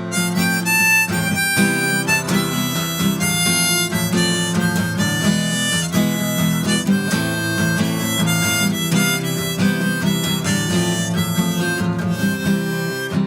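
Instrumental intro of a folk-style song: a harmonica playing held melody notes over strummed acoustic guitar.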